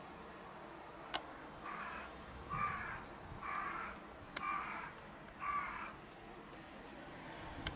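A crow cawing five times in a row, harsh calls about a second apart, after a single sharp click.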